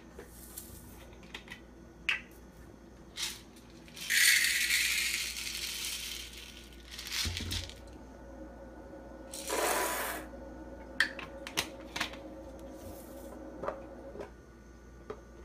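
Dried popcorn kernels poured into a silicone microwave popcorn popper: a rattling rush of about two seconds, with shorter rattles a few seconds later and scattered clicks and knocks as the jar and bowl are handled.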